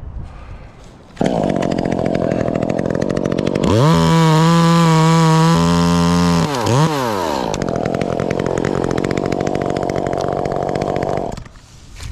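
Chainsaw cutting a limb of a dead white oak. It starts about a second in, holds a steady high-pitched rev for a few seconds in the middle with a quick dip and swoop in pitch, then runs on with the earlier sound until it cuts off near the end.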